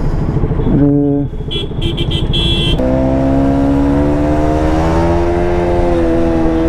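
KTM Duke 200's single-cylinder engine running at fairly steady revs in traffic, its note rising slightly and easing back. In the first few seconds, before the engine note settles, there is mixed traffic noise with short high-pitched beeps.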